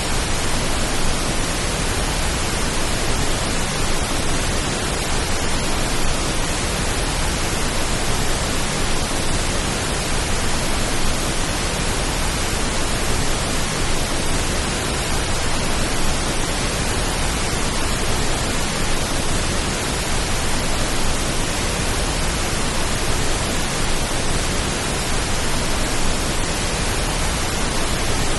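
Steady pink noise: an even, unchanging hiss with no drops, clicks or other events, made as a rain-like calming sound.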